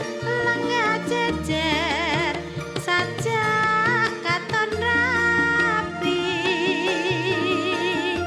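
Music: a melody of long, wavering notes with heavy vibrato over a moving bass line, punctuated by drum strokes.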